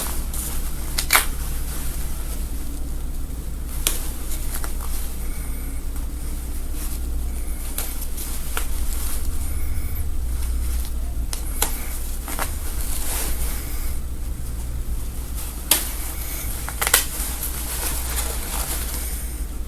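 Scattered sharp snips and clicks of stitching being cut out of a gown's seams, a few seconds apart, over a steady low hum.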